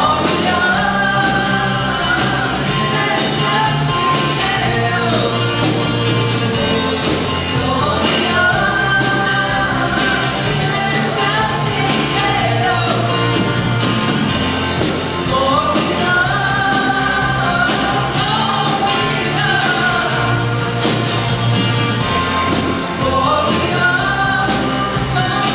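Live rock band playing a Christmas song: singing with long held notes over electric and acoustic guitars, a drum kit keeping a steady beat, and keyboard.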